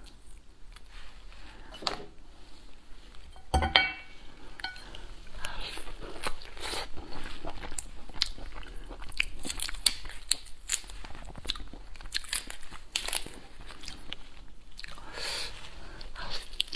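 A boiled giant tiger prawn being peeled by hand, its shell cracking and crinkling, then the prawn meat bitten and chewed close to a clip-on microphone. A single sharp knock with a short ring comes about three and a half seconds in.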